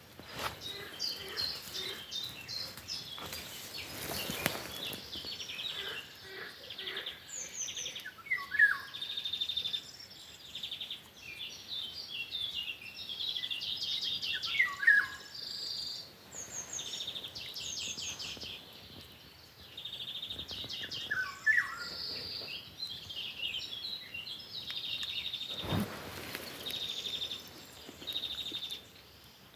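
Songbird singing in repeated varied phrases of fast trills and falling whistles. There is a brief rustle about four seconds in and a single thump near the end.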